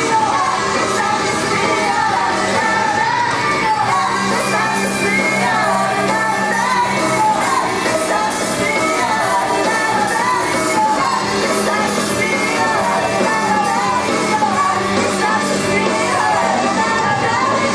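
Live idol-pop song in a concert hall: a female voice singing over the backing music, with shouts from the crowd.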